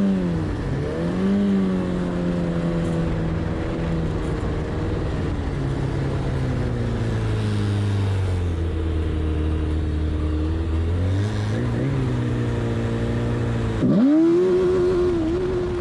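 Snowmobile engines running at low revs, their pitch wandering slowly. About 14 seconds in, an engine revs up sharply and holds at high revs, louder, as the sleds launch down the drag strip.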